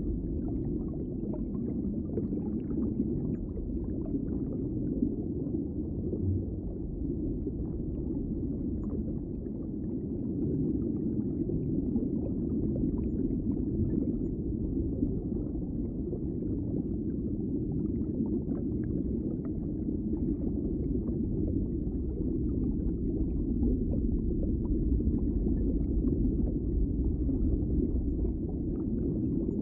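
Underwater ambience: a steady, muffled low rumble of water, with faint scattered bubble ticks above it.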